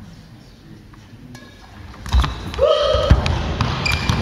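Badminton rally on a wooden sports-hall floor: a few sharp racket-on-shuttlecock hits, then from about two seconds in, heavy footfalls and several short shoe squeaks as players lunge and push off.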